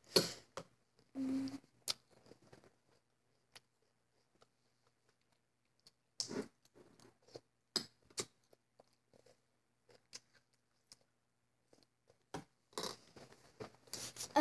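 Mostly quiet room with scattered faint rustles, clicks and scrapes from writing on paper and handling it.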